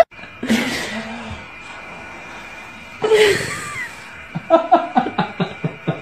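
Two sudden breathy bursts of noise from a man close to a baby, about two and a half seconds apart. Near the end the baby laughs in a quick string of short giggles.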